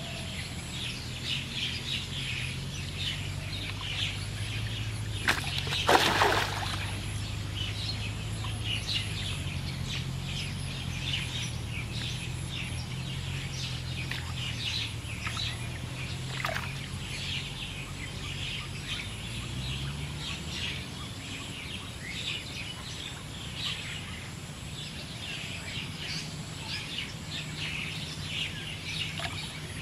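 Many small birds chirping continuously over a low steady hum, with one brief loud noise about six seconds in.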